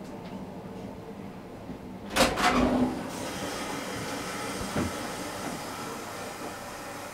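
A cigarette being lit: two quick sharp strikes and a short flaring rush that dies away within about a second, then a steady hiss.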